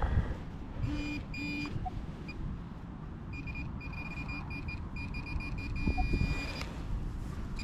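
Handheld metal-detecting pinpointer beeping in short, high-pitched pulses. The pulses are sparse at first, then come thick and almost continuous from about the middle onward as the probe closes on a target in the dug soil, a threepenny bit coin. A lower tone sounds briefly about a second in, and wind rumbles on the microphone underneath.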